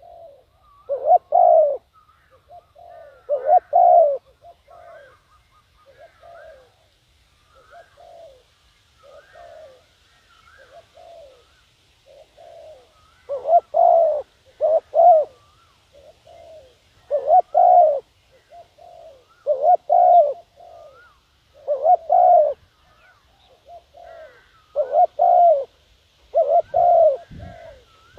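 Spotted dove cooing as a decoy call to lure wild doves: loud groups of two or three low coos come every few seconds, with fainter coos in between. Faint higher chirps sound behind.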